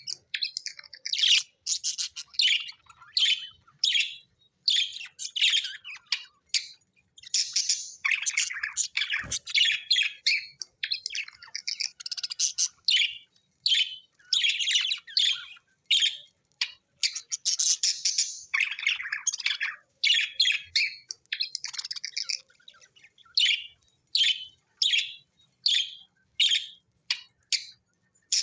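Budgies chirping and chattering: a rapid run of short, high chirps broken by longer warbling stretches, with hardly a pause.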